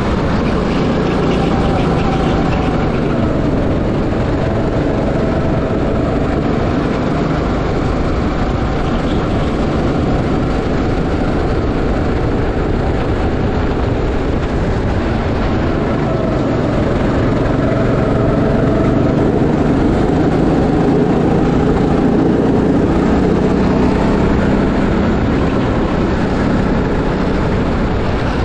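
Go-kart engine running at speed, its drone drifting a little up and down in pitch through the corners, with wind and road noise.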